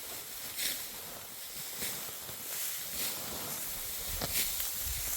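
Outdoor ambience: a steady hiss with a few short rustling sounds, and a low rumble coming in from about four seconds in.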